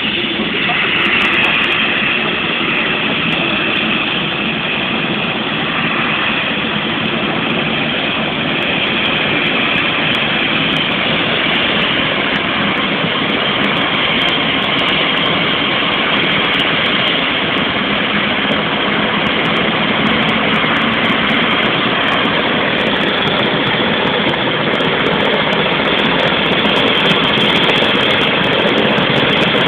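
Rescue helicopter's turbine engines and rotor running, a loud steady roar heard at close range.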